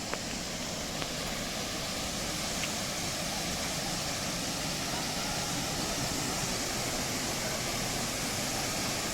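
Steady rushing of a waterfall and its river, with a couple of faint clicks in the first second.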